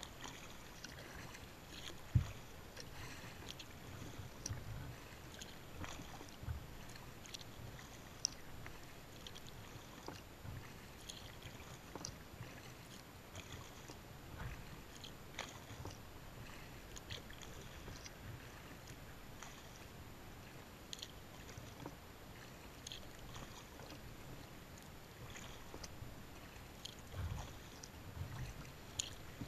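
Water lapping against a sea kayak's hull in faint, irregular small splashes and drips over a soft low rumble, with one sharper knock about two seconds in.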